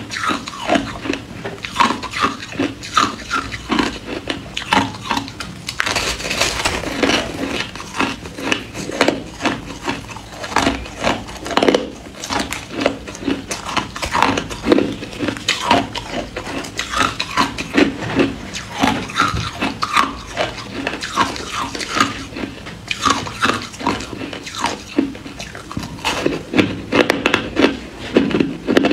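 Ice being crunched and chewed close to the microphone: a dense, irregular run of crisp cracks and crunches.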